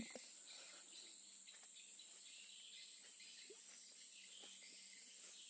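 Near silence with faint, steady high-pitched chirring of crickets in the background.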